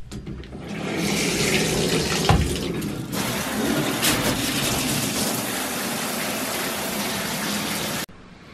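Shower water turned on at a single-handle valve, rushing steadily once it builds up about a second in. There is a single sharp knock a little after two seconds. The sound cuts off suddenly near the end.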